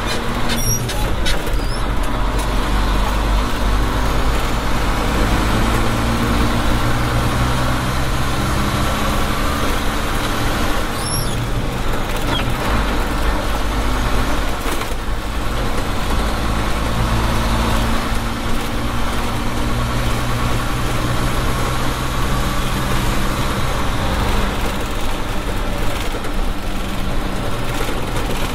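Nissan Diesel PF6TB engine of a Tadano GT550E truck crane running on the road, heard from inside the closed cab, its note shifting a few times, over a steady hum of road noise.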